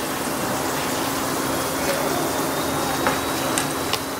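Thin potato slices deep-frying in hot oil in a kadai on a high gas flame: a steady sizzle with a few sharp crackles in the second half, the slices fried crisp like chips.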